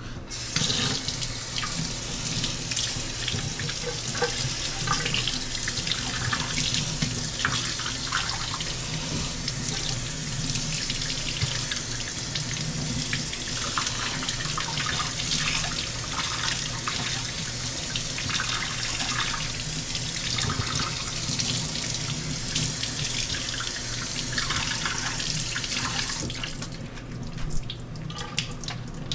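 Kitchen faucet running steadily into a stainless-steel sink as lettuce leaves are rinsed under the stream. The water shuts off near the end, leaving a few small wet splashes and knocks.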